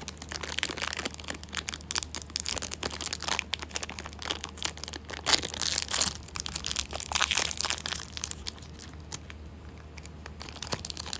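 Candy wrappers crinkling and crackling as they are handled and opened: dense irregular crinkling for most of the time, thinning to a few scattered crackles near the end.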